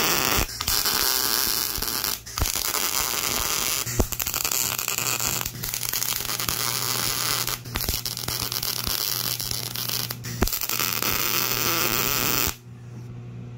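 MIG welder arc on CO2 shielding gas, crackling steadily as a pin is welded onto a steel mount, with several short breaks between passes. The arc stops about twelve and a half seconds in, leaving a low hum.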